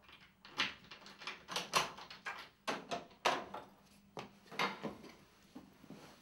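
An old panelled wooden door being handled: about a dozen irregular clicks, knocks and rattles from its handle, latch and frame.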